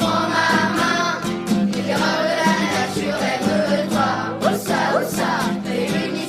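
Background music: a song sung by a group of voices over instrumental accompaniment.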